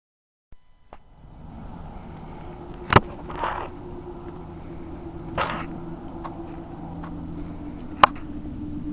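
Dead silence for half a second, then quiet outdoor ambience with a steady low hum and hiss. Two sharp clicks come about three and eight seconds in, with two short rushes of hissing noise between them.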